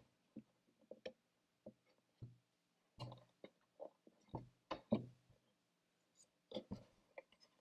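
Faint, scattered clicks and light taps of a steel measuring rule being set and nudged into place on a wooden box edge, a dozen or so small knocks with the sharpest ones around the middle and near the end.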